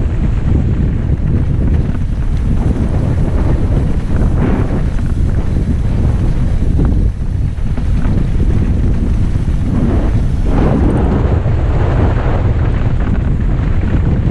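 Wind buffeting the microphone during a fast mountain bike descent, over a steady rumble of tyres and bike rattling on rough trail, with a few sharp knocks.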